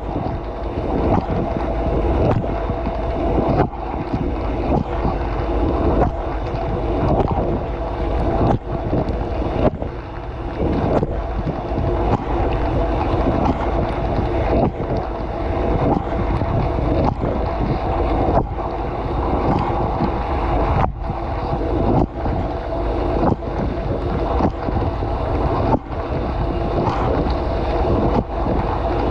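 Running dishwasher heard from inside the tub: water spraying and splashing steadily over the dishes and the camera, with a steady pump hum underneath and irregular brief breaks in the spray.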